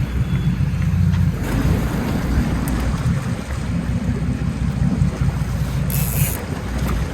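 Wind rumbling on the microphone over the steady low noise of a boat at sea, with a short hiss about six seconds in.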